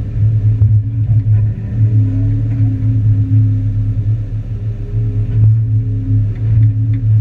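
Diesel engine of a Hyundai 380 long-reach excavator running with a steady low rumble, rising and easing slightly as it works.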